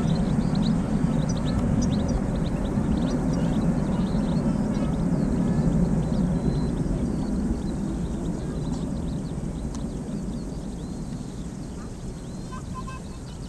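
Boeing 747-400 freighter's four jet engines rumbling as it climbs away after takeoff, the sound fading over the second half. Small birds chirp throughout.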